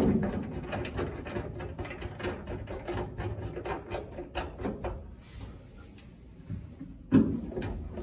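Hand rivet nut setting tool being worked into a sheet-metal floor pan: a run of small metal clicks, about four or five a second, as the mandrel is turned into the rivet nut, then a louder clunk about seven seconds in.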